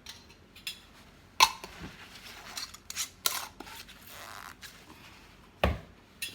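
Kitchen handling sounds: a series of sharp clicks and knocks of jars, lids and utensils being moved on the counter, with a duller thump near the end.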